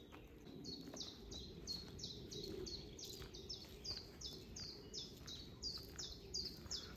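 A small songbird singing a long run of quick, repeated high notes, each sliding downward, about three a second, starting just under a second in.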